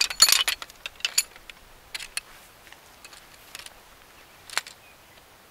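Metal tube frame of an Ozark Trail backpacking camp chair clicking and clinking as its poles are unfolded and seated into the hubs. A quick cluster of rattling clinks comes in the first half-second, then single sharp clicks about a second apart.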